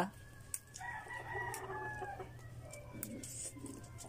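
A rooster crowing once, faint, a call of about a second and a half starting about a second in.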